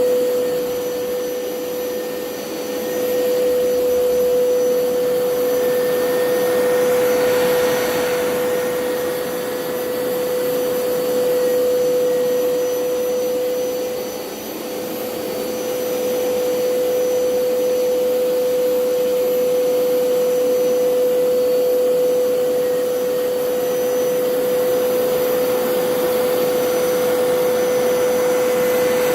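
Hoover PowerScrub Elite carpet cleaner's suction motor running with a steady high whine, its level dipping briefly twice.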